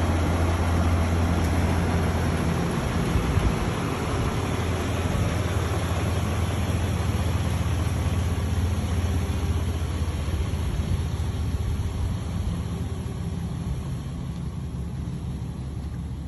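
Ram pickup truck's engine idling with a steady low rumble, gradually growing fainter.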